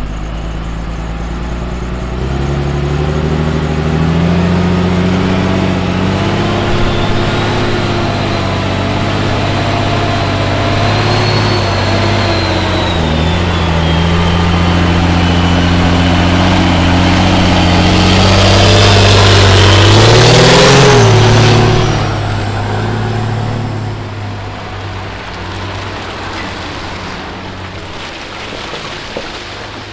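Diesel truck engines working hard under load while a stuck car carrier is pulled up out of deep mud. The engine note steps up about two seconds in, holds with a high whine above it, builds to its loudest around twenty seconds, then eases off a couple of seconds later as the pull is done.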